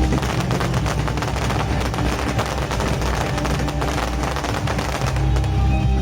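Fireworks going off in a rapid, unbroken crackle of many small bangs, like a machine gun.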